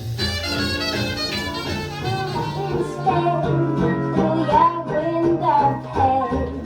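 Swing-jazz music.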